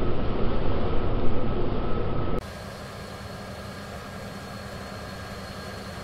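John Deere X9 1100 combine harvester running as it cuts wheat: a loud, rough rumble for about two seconds, then, after a sudden drop, a quieter steady machine hum with faint steady whines.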